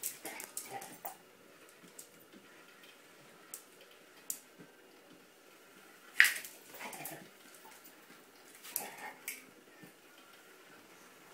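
A dog's claws and paws clicking and skittering on a ceramic tile floor as it pounces after a laser dot, with scattered taps and one sharper, louder one about six seconds in.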